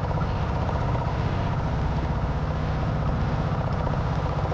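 Engine of a motorized outrigger boat running steadily while underway, a fast, even low pulse.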